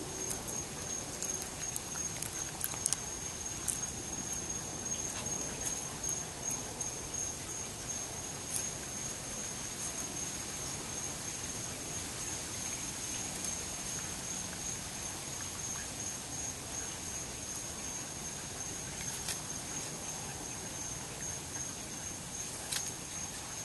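Raccoon chewing and crunching apple pieces, small scattered clicks that are busiest in the first few seconds and then thin out, over the steady high trill of a cricket.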